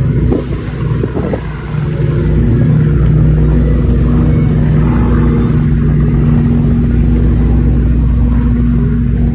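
Steady engine drone of a water-scooping firefighting aircraft skimming the sea surface to take on water. It gets louder about two seconds in, then holds at an even pitch.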